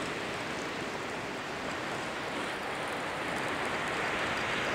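Sea surf washing onto the shore, a steady rush of water that swells a little near the end.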